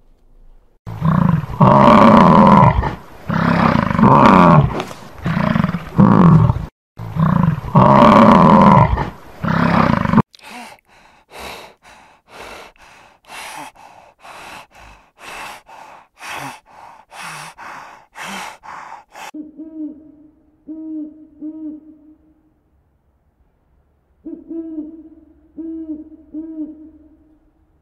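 American bison bellowing, a run of loud, deep, rough calls. Then a spotted hyena gives a quick series of short calls, about two a second. Then a great grey owl hoots low, in two groups of three.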